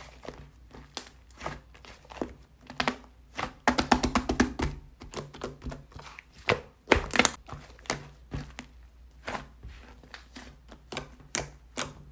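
Fluffy slime being squeezed, pressed and stretched by hand, making a string of sticky clicks and pops, thickest about four seconds in.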